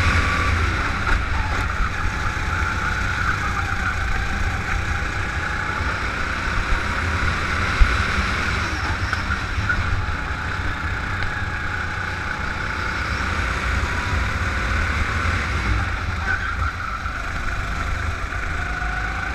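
Go-kart engine running at speed, its pitch rising and falling gently as the kart goes through the bends. A heavy low rumble of wind buffets the onboard microphone.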